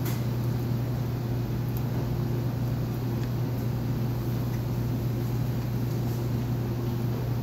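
Steady low mechanical hum of commercial kitchen machinery, unchanging throughout.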